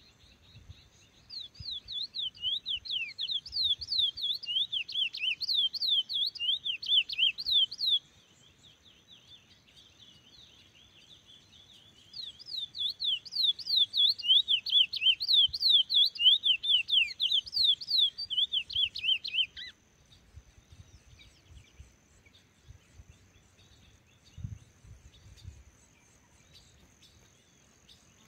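Curió (chestnut-bellied seed finch) singing: two long bursts of quick whistled notes sweeping up and down, the second ending abruptly.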